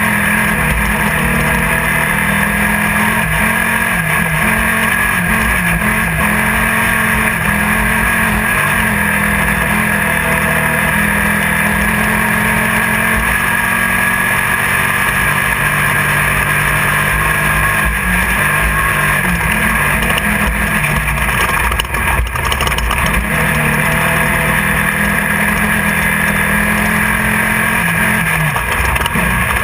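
Off-road race car's engine running hard at race speed, heard from inside the car, with its pitch stepping up and down as the throttle and gears change. Loud wind and chassis noise run under it, and there are a few sharp knocks about three-quarters of the way through.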